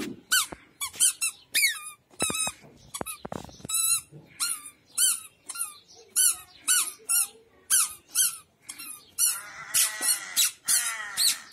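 A toddler's squeaky shoes squeaking with each step: short, high-pitched squeaks about twice a second, each bending up and then down in pitch.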